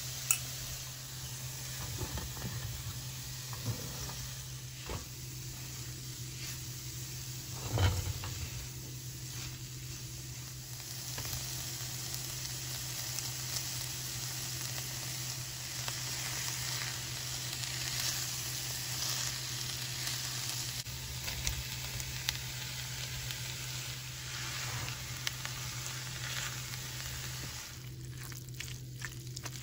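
Food sizzling in a hot frying pan, with a few clicks and knocks of a utensil against the pan, the loudest about eight seconds in.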